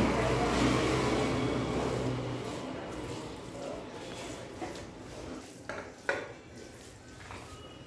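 A steady low engine hum fades out after about two and a half seconds. Then come a few sharp clinks of a steel plate, the loudest about six seconds in, as minced mutton is scooped from a stone mortar onto it.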